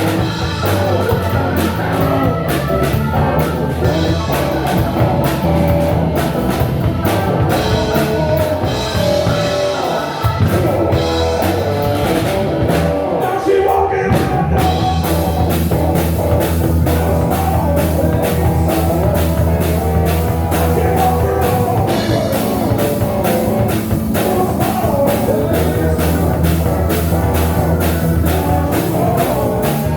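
Live blues-rock band playing with singing: drum kit keeping a steady beat with regular cymbal strokes, electric guitar, bass guitar and keyboards.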